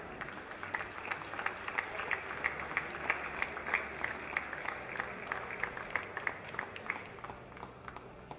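Audience clapping in time, about three claps a second, over a low crowd murmur. The clapping thins out near the end.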